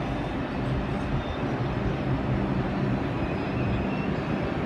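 R142 subway train running through the station: a steady rumble with a low, even hum.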